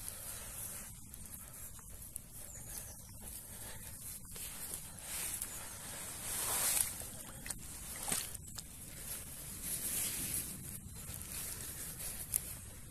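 Rustling and handling noise of a padded fabric carp sling being carried over grass, with a louder swell of rustling about halfway through and a few light knocks.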